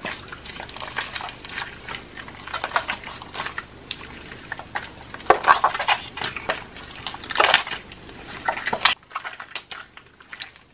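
Thick gold slime squeezed and stretched by hand, giving a dense run of wet clicks and crackles, loudest about five and seven and a half seconds in and thinning near the end.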